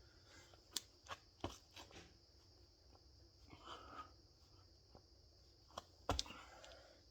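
Faint sounds of a person exercising: scattered soft knocks and thumps of hands, feet and a kettlebell on the floor, with a short rustle around four seconds in and one heavier thump about six seconds in, over a steady hiss.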